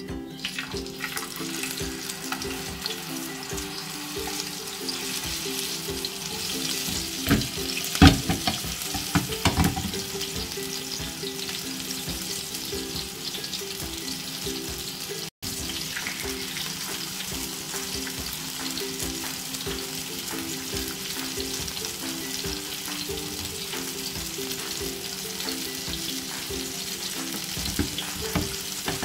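Masala-marinated pomfret shallow-frying in hot oil in a flat pan, a steady sizzle. A few louder knocks come around eight to ten seconds in.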